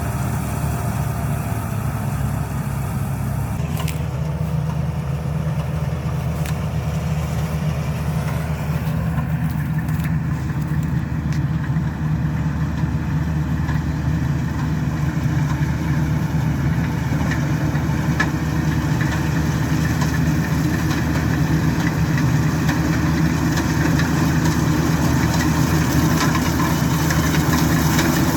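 Rice combine harvester's engine running steadily, a continuous drone that shifts slightly in tone about four seconds in and grows a little louder toward the end.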